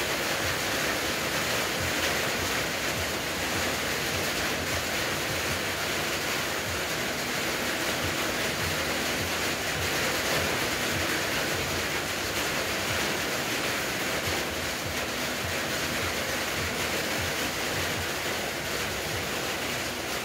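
Handheld propane torch burning with a steady hissing roar as it heats a part on the vehicle's underside.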